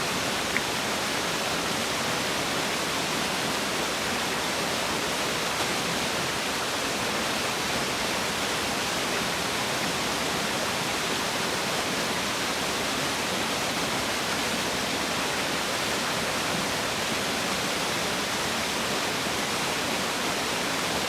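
Waterfall's steady rush of falling water, an even hiss with little deep rumble.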